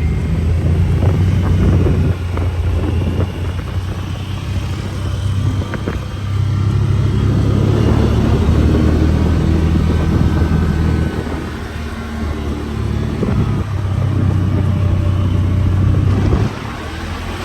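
ATV engines running, their hum swelling and easing several times before dropping off suddenly near the end.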